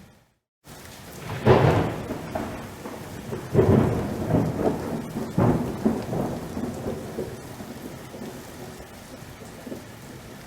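Steady rain with thunder: a sharp crack of thunder about a second and a half in, then two more loud peals a couple of seconds apart, each rolling off into a low rumble under the rain. The audio drops out to silence for about half a second at the very start.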